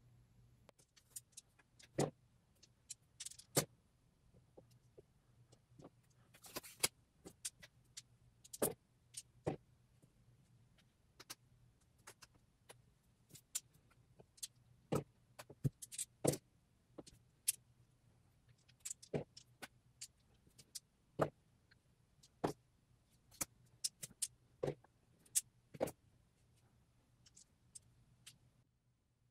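Irregular sharp clicks and taps of small plastic gaming pieces being handled and set down on a tabletop: red X-Wing attack dice and miniature ship bases placed by hand, a few dozen separate knocks spread through the whole stretch.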